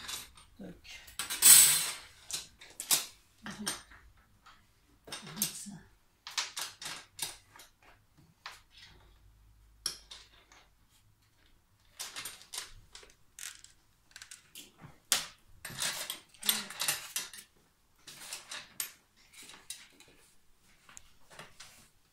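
Irregular metallic clinks, scrapes and knocks as a steel ruler and metal clamp bars are handled and fitted against a dibond panel on a CNC router bed. They come in scattered clusters with short pauses, and the loudest is about a second and a half in.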